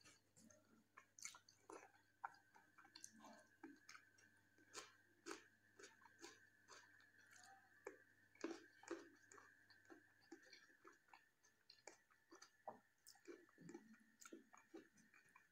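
Faint close-up eating sounds: wet chewing with soft smacks and clicks of the mouth, several a second, over a faint steady high whine.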